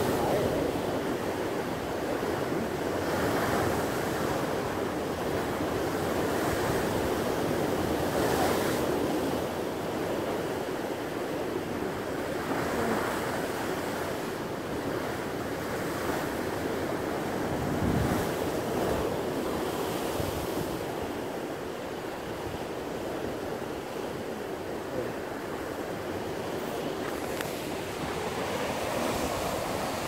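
Ocean surf breaking and washing over shoreline rocks: a continuous rush of foaming water that swells every few seconds as waves break.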